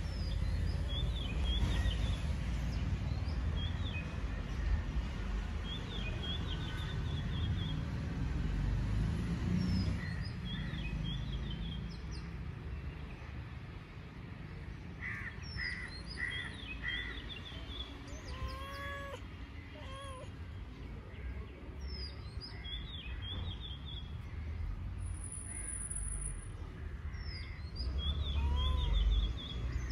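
Birds calling: short, high chirping phrases that repeat every few seconds, with a few lower whistled notes, over a steady low rumble.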